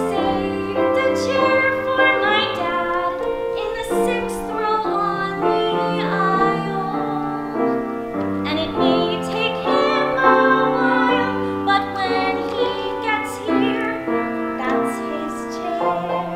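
Upright piano playing the accompaniment to a musical-theatre song, a continuous run of changing chords and notes.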